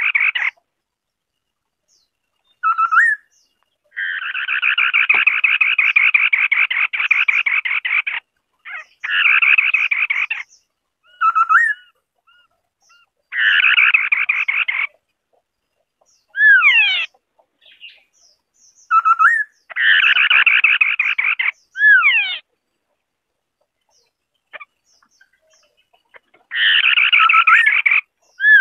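White-browed Scimitar-Babbler singing: repeated dense, rapid chattering rattles lasting one to four seconds each, the longest about four seconds in. Between them come short, sharply falling whistled notes and brief single notes.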